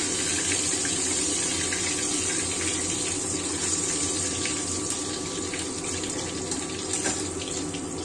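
Oil sizzling steadily in a wok as pieces of fried mullet are lifted out, with a few small crackles in the second half.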